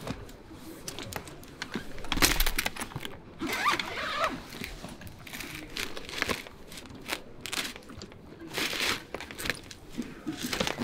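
Rustling, crinkling and light knocks of luggage being handled: a bag rummaged through, then a hard-shell suitcase, in irregular bursts with the loudest rustle about two seconds in.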